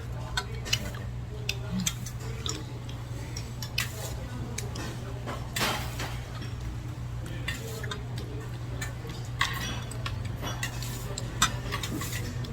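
Cutlery clinking and tapping against dishes during a meal, scattered irregular clicks, over a steady low hum.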